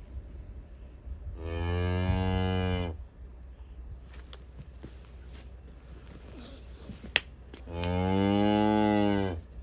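Galloway cattle mooing: two long, low moos several seconds apart, with a single sharp click between them.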